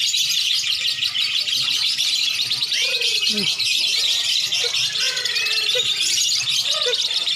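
Many caged lovebirds and oriental magpie-robins (kacer) singing at once, a dense, unbroken high chatter. A few clear whistled notes rise and then hold, about three seconds in, again after five seconds and again near the end.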